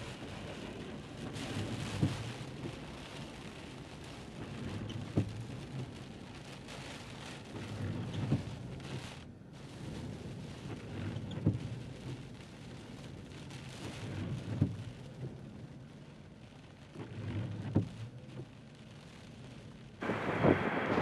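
Gale-force wind buffeting the microphone: a steady rushing hiss with low rumbling gusts and a knock about every three seconds. Near the end a jet aircraft's engine comes in much louder, with a steady whine over its rumble.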